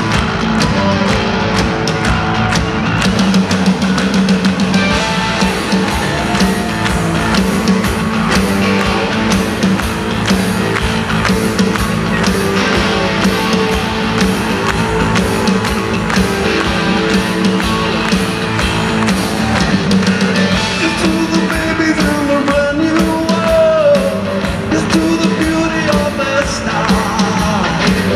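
Live rock band playing with electric guitar, drums and keyboards, and singing over the top, heard from among the crowd.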